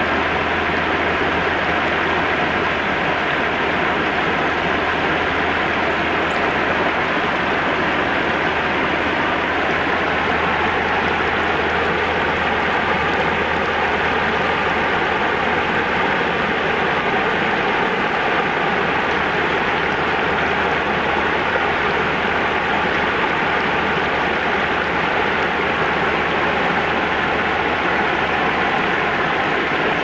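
River water pouring steadily over a low concrete weir and rushing through shallow rapids, an unbroken even rush with a steady low rumble underneath.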